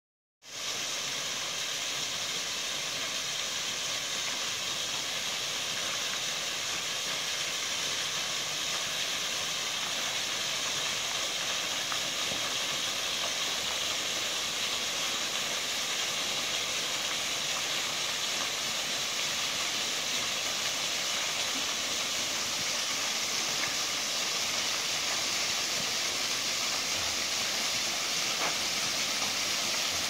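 Small waterfall spilling off a rock ledge and splashing onto stones: a steady, unchanging rush of falling water that starts about half a second in.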